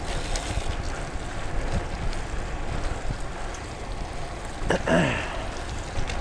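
Wind rushing over the microphone and bicycle tyres hissing on wet pavement at riding speed. About five seconds in, a brief, louder sound falls quickly in pitch.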